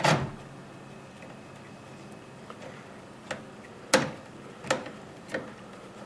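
Hand screwdriver turning a screw into a power supply through the back of a metal computer case, making sharp clicks: one at the start, then about four more spaced roughly two-thirds of a second apart in the second half, the one about four seconds in the loudest.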